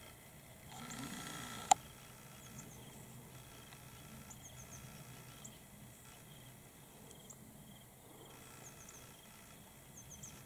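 Quiet outdoor ambience with faint short high chirps, singly or in quick groups of two or three, every second or so. Early on, about a second of rustling ends in a single sharp click, the loudest sound.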